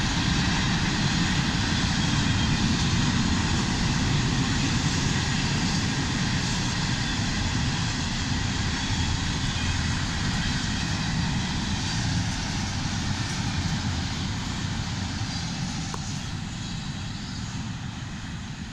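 CSX double-stack intermodal freight train rolling past on the rails: a steady low rumble with wheel-on-rail noise, fading over the last several seconds as the end of the train goes by.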